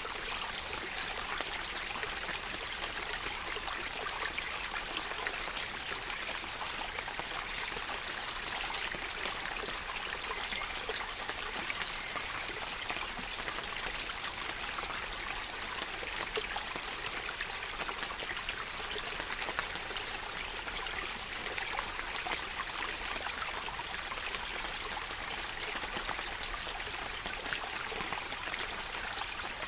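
Steady rain: an even hiss of falling water with a fine patter of drops, unchanging throughout.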